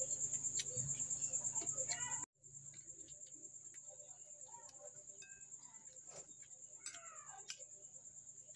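Crickets chirping: a steady, high, rapidly pulsing trill. It cuts out for a moment about two seconds in and comes back quieter. Light scattered clicks of plates and utensils are heard under it.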